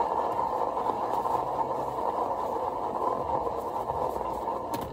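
Paint-pouring spinner turning an acrylic-coated canvas fast inside a hard plastic box, a steady whir that eases off near the end as excess paint is spun off the canvas.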